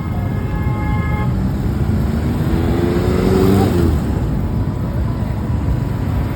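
A bus's telolet horn sounds a chord of several notes at once, cutting off about a second in, over the steady noise of passing traffic. A lower, slightly wavering horn-like tone follows briefly a couple of seconds later.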